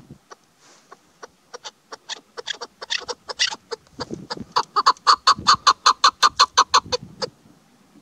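Female chukar partridge calling: a run of short, sharp clucking notes that speed up and grow louder, reaching about five a second, then stop about seven seconds in.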